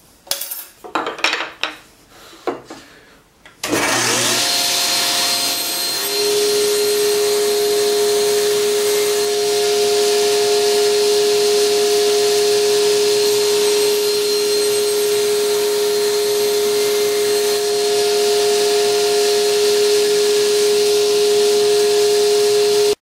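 A few knocks of wood and metal being handled, then a table saw switched on about four seconds in, spinning up and running steadily as a maple piece is fed through the blade along the fence.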